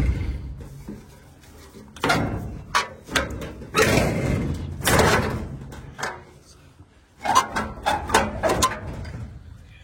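Irregular knocks, clunks and scraping as a heavy part of the machine is pulled and pried to work it free.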